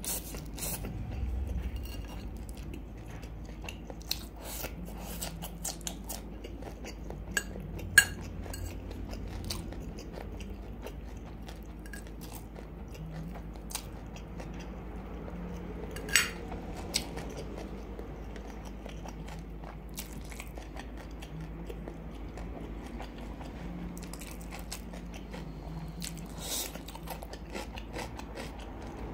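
Close-miked chewing of black bean sauce instant noodles, with a metal fork clinking and scraping on a ceramic bowl. A few sharp clinks stand out, the loudest about eight seconds in and again about sixteen seconds in.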